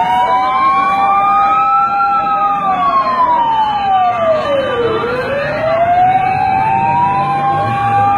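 Sirens wailing, slowly rising and falling in pitch over about six seconds, with a second siren overlapping.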